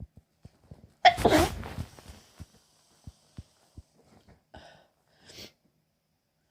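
A woman sneezes once, loudly, about a second in, as she comes down with a cold. Afterwards come small clicks and two short breathy hitches.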